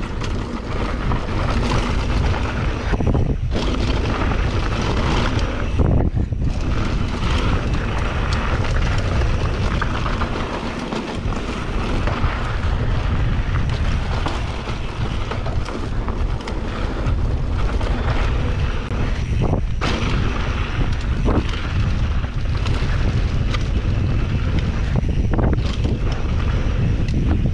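Heavy wind rumble on the microphone and trail noise from a mountain bike going fast down a dirt downhill trail. Several sharp knocks from the bike over bumps, four or so spread through the run.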